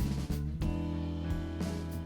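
Background music: guitar-led instrumental with a bass line and drum beat.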